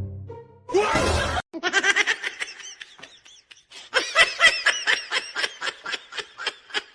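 A person laughing in quick repeated bursts, after a short loud outburst about a second in.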